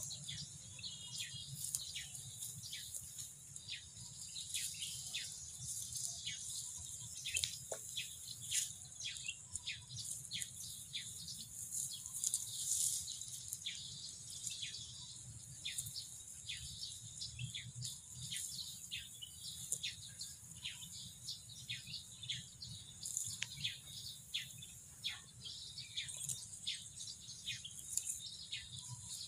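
Small birds chirping: many short, high chirps that fall sharply in pitch, one or two a second, over a steady high insect buzz.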